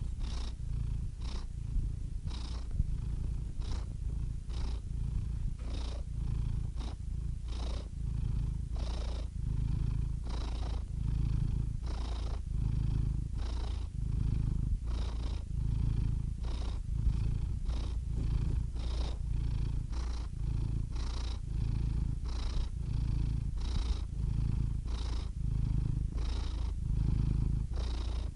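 Domestic cat purring steadily, the purr swelling and easing in an even rhythm with each breath in and out.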